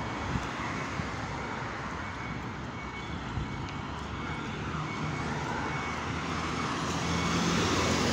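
Road traffic noise heard from a moving vehicle: a steady rumble of engines and tyres that grows louder near the end.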